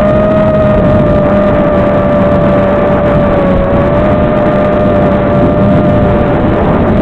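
FPV quadcopter's brushless motors whining steadily in flight, heard tinny and hissy through the analog video link's audio. The pitch holds nearly constant and dips slightly about three and a half seconds in.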